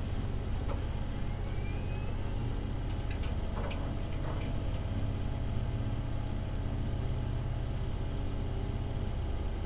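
Steady low drone, with a few faint clicks and rustles about three to four seconds in.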